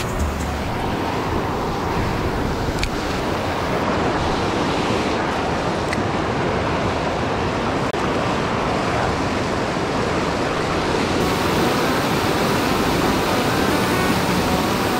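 Steady rush of whitewater where a river spills over a low concrete weir.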